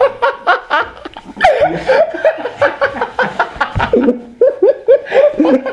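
A young man laughing hard, with others' laughter around him. From about four seconds in it becomes a run of quick, even 'ha-ha' bursts.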